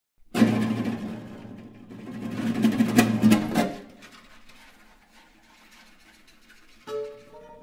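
Classical guitars played with extended percussive techniques. First comes a loud, noisy rubbing and drumming on the instruments that swells and stops abruptly at about three and a half seconds. Then quiet nail-rubbing on the guitar bodies follows, and near the end a sharp plucked chord rings out.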